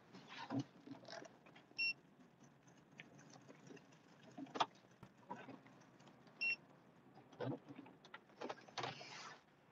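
Snowplow truck heard from inside the cab while plowing: scattered knocks and scraping rustles, with a sharp click a little before halfway. Two short high beeps sound about five seconds apart.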